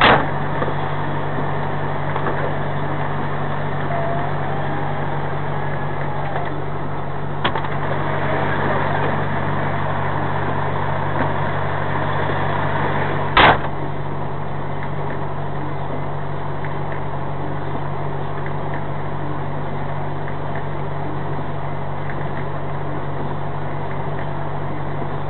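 A truck's engine idling, heard from inside the stationary cab as a steady low hum. A few sharp clicks or knocks break in, the loudest about thirteen seconds in.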